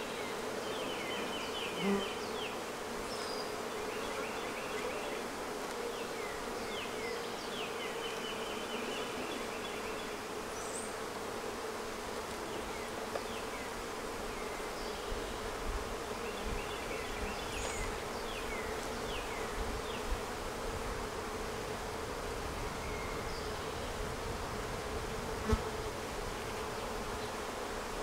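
A honeybee colony buzzing on the open frames of a hive: a steady, even hum throughout. A few light knocks and brief high chirps sound over it.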